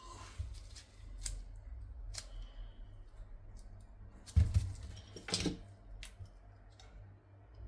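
Small clicks and taps of a phone and tools being handled during a screen repair, with a louder knock about four and a half seconds in and another about a second later, over a steady low hum.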